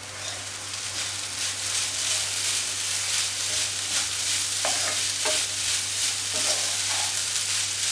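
A wooden spatula stirring and scraping crushed soya chunks through spice masala in a nonstick wok, in repeated strokes over a steady sizzle of frying.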